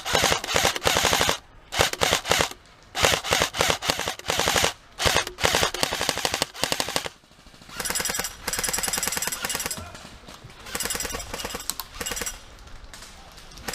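Airsoft rifles firing on full auto in about half a dozen bursts of a second or two each, with short pauses between. Each burst is a rapid string of clacking shots, many to the second.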